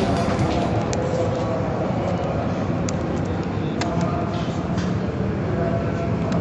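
A Buell XB12STT's air-cooled V-twin engine running at a steady speed, with a few sharp clicks over it.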